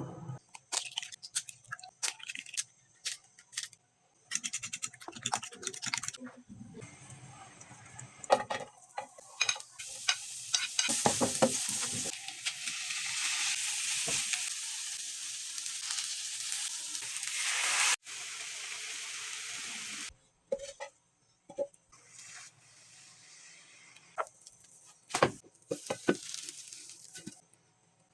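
Kitchen cooking sounds: utensils clicking and knocking against cookware, then a long stretch of food sizzling in a hot pan that cuts off suddenly, followed by more scattered clatter.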